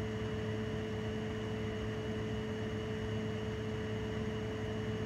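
Steady background hum and hiss, with a few held tones that do not change. No other event stands out.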